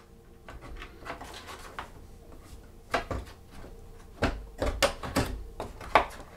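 Tools being handled in a hard moulded plastic case insert. A short scraping shuffle is followed by a series of sharp clacks and knocks as tools are pressed into and pulled from the hard plastic slots.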